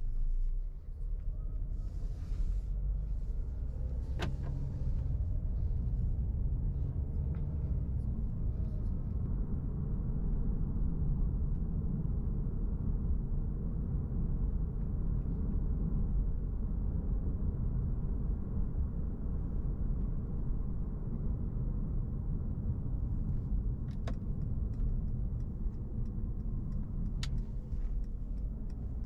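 In-cabin sound of a 2020 Mercedes-Benz C200 Coupé on the move: its 1.5-litre four-cylinder petrol engine and tyre and road noise make a steady low rumble. A few light clicks come near the end.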